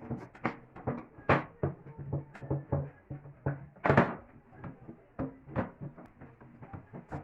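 Irregular knocks and clatter of wooden pieces being handled and set down, more than a dozen sharp strikes at uneven intervals, the loudest about four seconds in.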